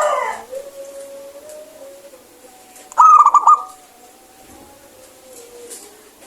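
Zebra dove cooing. A call trails off at the start, then about three seconds in comes a short, loud burst of four quick wavering notes.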